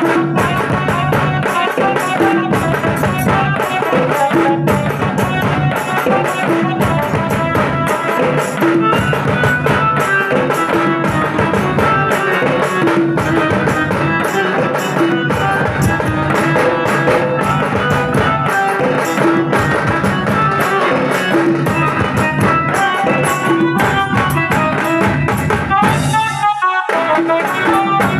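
Tasa band music: a line of large dhol drums beaten with sticks, together with tasa and percussion, under a melody played on an electronic keyboard (casio) through loudspeakers, a Shyama Sangeet tune. The low drums break off briefly near the end.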